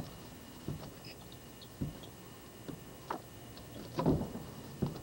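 Irregular knocks and scuffs of a climber's shoes and hands against a stone wall, about six of them, the loudest a cluster about four seconds in.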